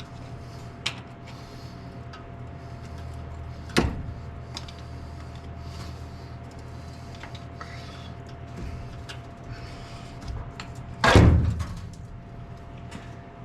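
Workshop handling sounds during an engine teardown: a few sharp metallic knocks and clinks, then a heavy sliding clunk about eleven seconds in, over a faint steady hum.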